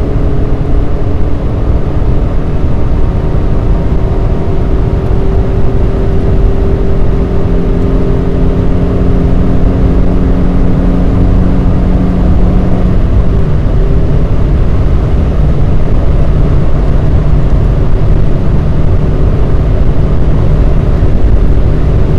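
Honda Civic EJ9's inline-four engine with its stock exhaust, running steadily under way amid heavy road and wind rumble. The engine note holds fairly level, then steps down to a lower pitch about thirteen seconds in.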